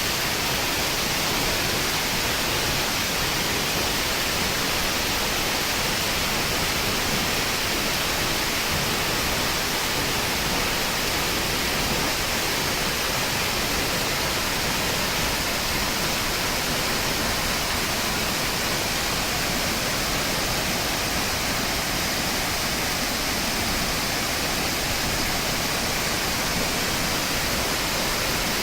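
Waterfall heard from right at its base: a loud, steady rush of falling water with a strong hiss.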